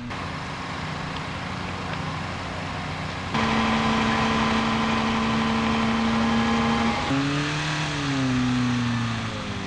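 Engines running steadily over a noisy background, louder from about three seconds in, with one engine's pitch rising and then falling near the end.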